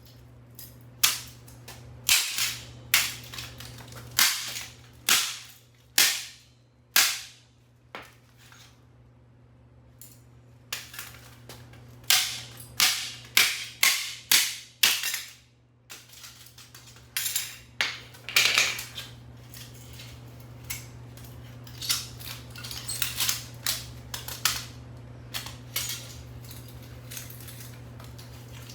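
Repeated sharp metallic hammer blows on a microwave oven magnetron, each with a brief ring, irregular and coming in clusters, getting lighter near the end, over a steady low hum.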